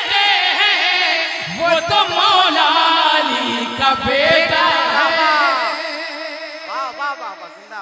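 Male voice singing a long, drawn-out melismatic line of an Urdu manqabat into a microphone over the stage sound system, with music under it, fading near the end.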